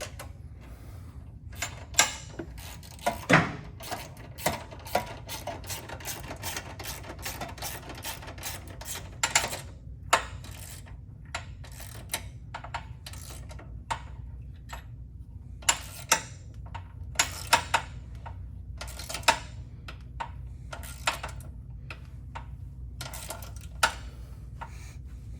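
Hand tools clicking and clinking on metal: a ratchet wrench working the bolts of the sway bar bushing brackets down tight. The clicks come irregularly, sometimes in quick runs, over a low steady hum.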